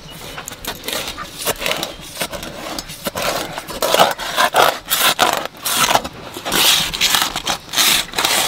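Knife cutting and scraping through the skin and flesh of a whole raw stingray in short, irregular strokes that get louder and more frequent from about three seconds in.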